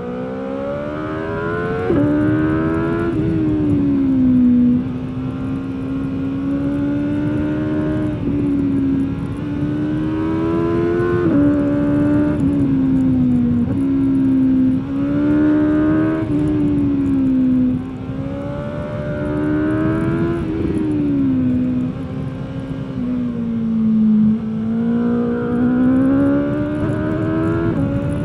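Stock 2021 BMW S 1000 R inline-four engine and exhaust heard onboard while riding, the revs climbing and falling over and over, with sudden steps in pitch at the gear changes. A low rush of wind runs underneath.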